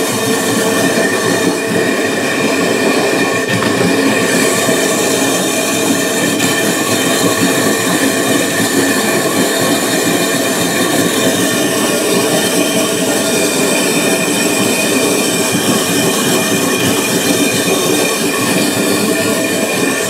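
Water in a toilet cistern churning violently like a geyser around the float-ball fill valve, a loud continuous noise with steady humming tones running through it. It is a plumbing fault whose cause is unknown.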